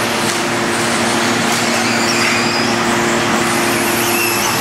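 Radio-controlled off-road buggies racing on an indoor dirt track: brief high motor whines come and go over a steady low hum and general noise.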